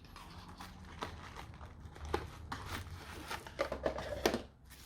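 Unboxing handling: packaging rustling, with light clicks and a few sharper knocks, as a USB microphone is taken out of its box.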